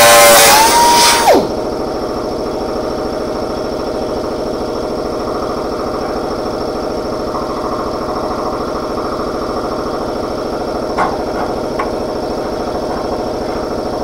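A cut-off wheel grinder, just lifted from cutting sheet steel, whines down and stops about a second in. After that a steady motor hum runs on in the shop, with two light clicks near the end.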